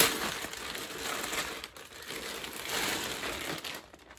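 Packaging crinkling and rustling as a handbag is unwrapped by hand: a sharp crackle at the start, then two stretches of rustling with a short lull between them.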